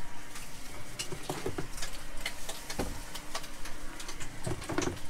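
Light clicks, knocks and rattles of a caravan fridge and the food containers in it being handled, with louder thumps near the end as the fridge door is swung shut.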